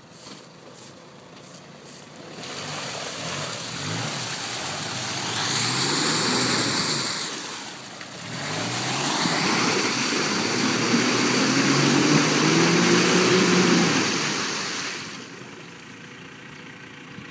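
Mitsubishi Pajero engine revving hard with its wheels spinning in deep muddy water, throwing up a loud rush of splashing, as the 4x4 struggles to get out. The revs climb in two long surges with a brief dip between them, then fall back to a steady idle near the end.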